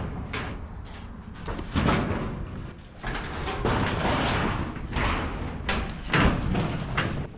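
Corrugated sheet-metal enclosure being lifted, tipped over and walked away: several surges of metal rattling and scraping, with a couple of sharp knocks about six seconds in.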